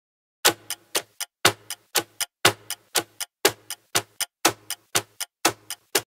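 Countdown ticking sound effect: sharp ticks, about four a second, with every fourth one loudest so that it keeps one strong beat per second, stopping suddenly near the end.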